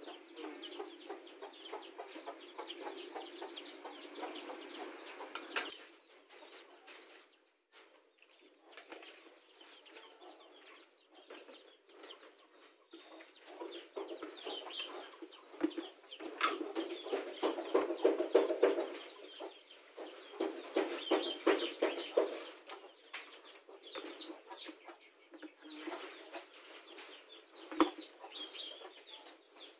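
Chickens clucking on and off, with a sharp knock near the end.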